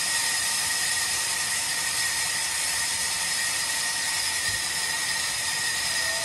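Large vertical band saw running steadily, a constant hiss with a high steady whine.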